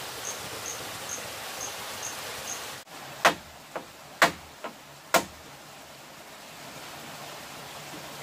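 A high insect chirp repeating about twice a second over a steady hiss. It breaks off suddenly about three seconds in, and five sharp strikes on bamboo follow, about half a second apart, three loud and two fainter.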